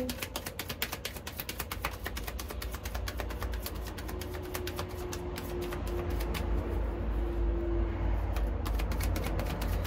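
A deck of reading cards being shuffled by hand: a long run of rapid card clicks and flicks over a low steady rumble.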